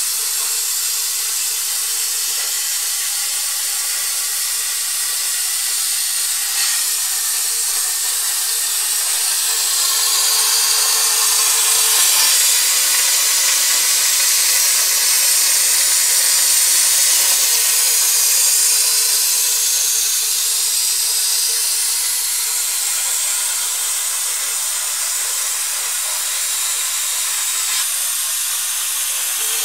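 CNC plasma torch cutting sheet metal: a loud, steady hiss of the arc and its air flow, with a faint steady hum underneath, swelling slightly in the middle.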